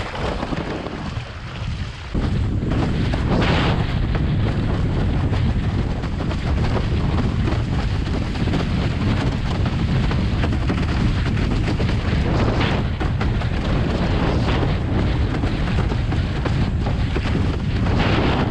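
Strong wind buffeting the microphone, with rushing water from a windsurf board sailing fast in high wind; the noise jumps louder about two seconds in and stays there.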